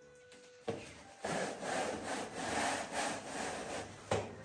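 Artificial Christmas tree's plastic branches scraping and rustling against the inside of a cardboard box as it is pulled out, in uneven rasping strokes. A sharp knock comes just before the scraping starts, and another near the end.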